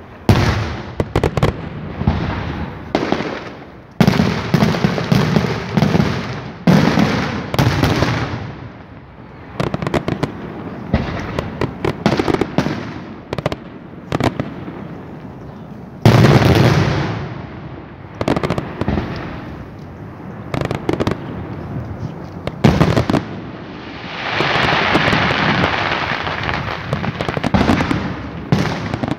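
Senatore Fireworks daytime display: aerial shells going off in an irregular string of loud bangs and booms, each trailing an echo. Near the end comes a few seconds of dense, continuous rushing noise.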